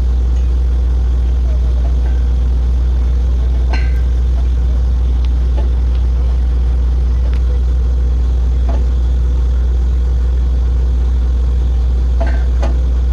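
Truck-mounted borewell drilling rig's engine running steadily with a deep, even drone, with a few faint metallic clinks from work at the drill pipe.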